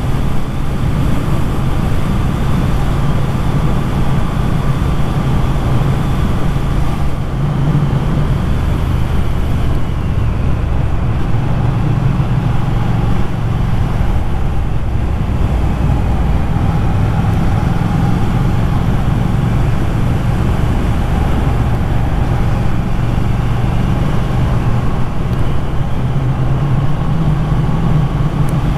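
Motorcycle engine running steadily at road speed, mixed with wind and road noise on the microphone.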